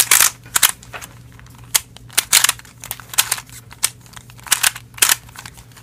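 Plastic Pyraminx Duo puzzle being scrambled by hand, its faces turning in quick twists with a string of irregular sharp plastic clicks.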